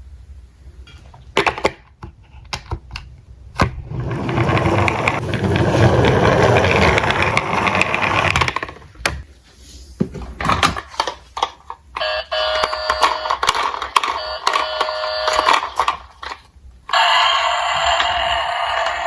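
Diecast toy cars clicking and clattering, with a few seconds of dense rattling around the middle. Then an electronic toy siren sounds in a repeating beeping pattern, changing to a steadier tone near the end.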